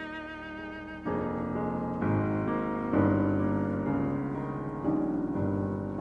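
Slow instrumental background music with violin, cello and piano holding sustained chords that change about once a second.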